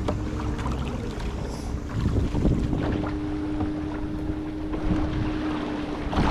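Wind buffeting the microphone and water sloshing around a sea kayak as the paddler climbs in and sits down, with scattered knocks and splashes. A steady low hum runs underneath and grows louder about halfway through.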